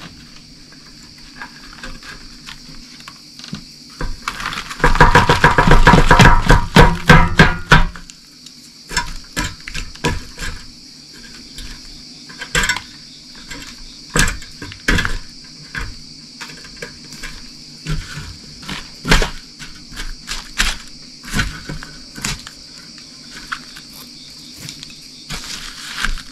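Cooking clatter: scattered knocks and clinks of pots and utensils, with a loud run of rapid knocking from about five to eight seconds in. A steady high insect drone runs underneath.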